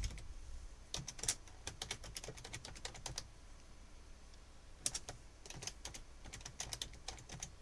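Typing on a computer keyboard: two runs of quick, soft keystrokes with a pause of about a second and a half between them.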